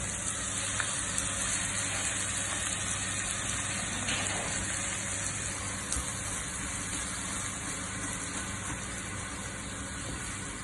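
Minced chicken sizzling steadily as it fries in hot oil with sautéed garlic and onion.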